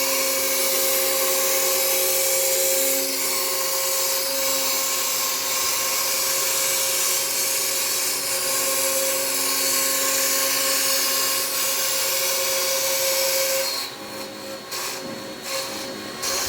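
CNC router spindle with a 1/8-inch bit cutting cast acrylic, a steady high-pitched whine and hiss over a vacuum's running noise. Near the end the high cutting hiss drops away in a few short gaps before returning.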